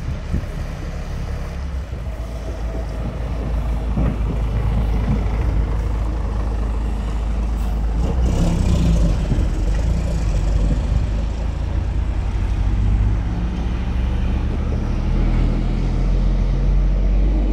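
Road traffic: a steady low engine rumble, with a car driving past about eight seconds in.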